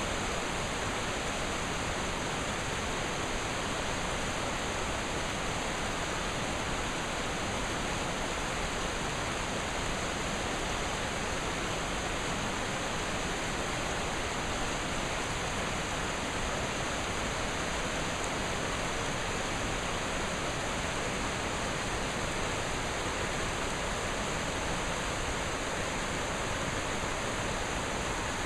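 Steady, even rush of flowing and falling water from Munson Creek and its waterfall.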